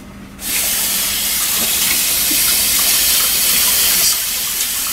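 Kitchen tap running into a sink: a steady rushing hiss that starts about half a second in and gets a little quieter for the last second.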